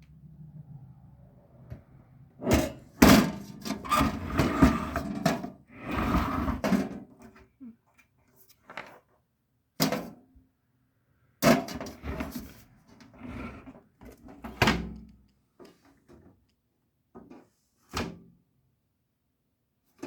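Parts of a toaster-oven breakfast appliance being handled: a busy stretch of knocks, clunks and rustling a few seconds in, then scattered single knocks, like a door or tray being opened and closed.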